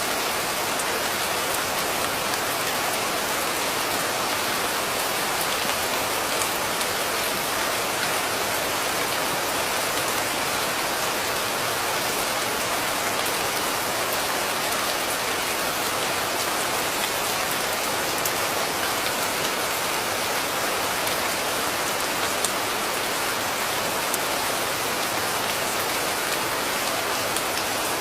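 Steady rain falling, an even hiss with faint individual drop ticks and no change in strength.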